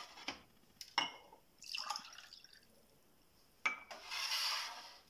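A drink being poured into drinking glasses in two pours, each starting with a sharp clink of glass followed by splashing and trickling liquid.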